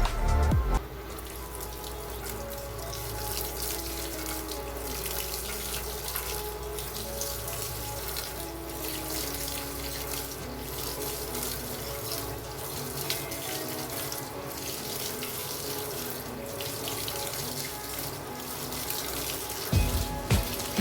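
LG 8.0 kg washing machine filling with water: a steady rush of water flowing into the drum. Loud music stops under a second in and a loud beat comes back near the end.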